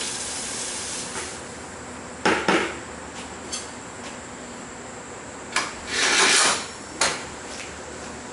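A few separate metal clanks and a longer scrape, steel and tools being handled at the forge rather than struck in a hammering rhythm.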